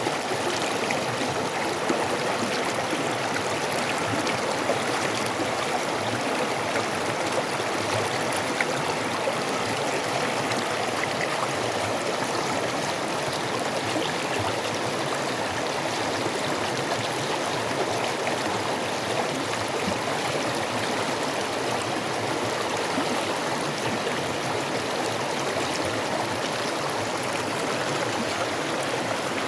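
A creek flowing over rocks, a steady rushing and babbling of water with small splashes.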